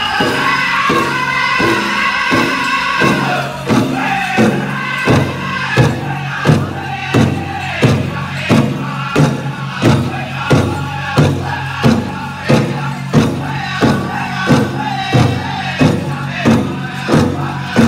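Powwow drum group singing a contest song over a large bass drum struck in a steady beat. High-pitched singing is strongest in the first few seconds; after that the even, heavy drumbeat comes to the front, about two strokes a second.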